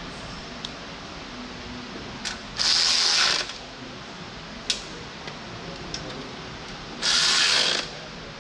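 Ratchet wrench clicking in two quick bursts, each just under a second, about three and seven seconds in, with a few light metal clicks and taps in between, as fittings on a loader's hydraulic hard lines are worked by hand.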